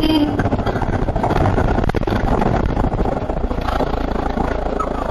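Bus engine and road noise heard from inside a moving city bus, a steady low rumble, with a single knock about two seconds in.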